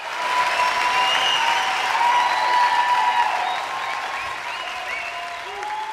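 Audience applauding, with some held, sliding pitched sounds over the clapping; the applause eases off slightly about three seconds in.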